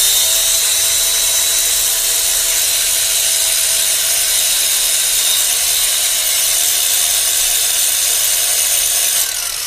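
Ridgid 18V cordless angle grinder running free at full speed with a steady high whine. Near the end the motor cuts out and spins down in a falling whine: the nearly dead battery shutting the tool off.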